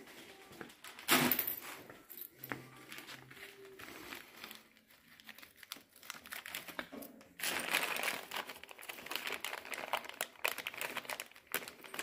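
Clear plastic bags of hardware crinkling and rustling as they are handled, densest in the second half. A short, louder noise comes about a second in.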